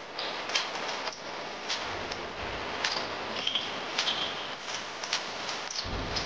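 Cooking oil heating in a wok for sautéing, with a steady sizzling hiss and many small scattered crackles and pops.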